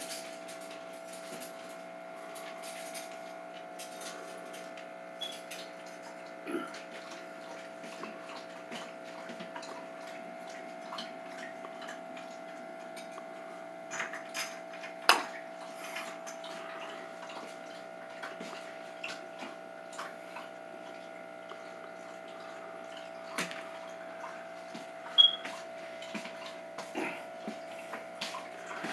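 Steady hum of running aquarium equipment, with scattered small clicks and taps; two sharper taps stand out, about halfway and near the end.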